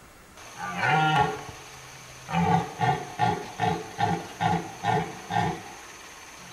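Red deer stag roaring in the rut: one long, deep roar about a second in, then a run of eight short roars at about two and a half a second.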